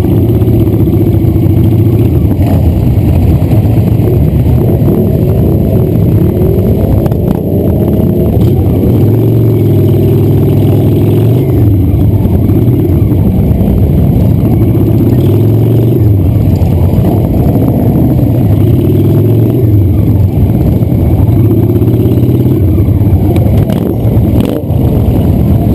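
Cruiser motorcycle engines running in slow stop-and-go traffic, the nearest one loud and steady, its pitch rising and falling every few seconds as the throttle is rolled on and off. Other motorcycles run alongside.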